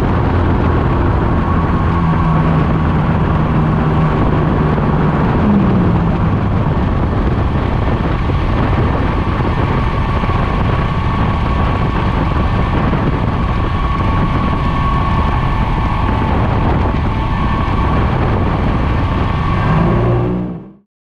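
Mosquito XE285 ultralight helicopter's engine and rotor running steadily, heard from inside the cockpit, during the low approach to a grass strip. There is a brief rise in pitch about five seconds in, and the sound cuts off abruptly just before the end.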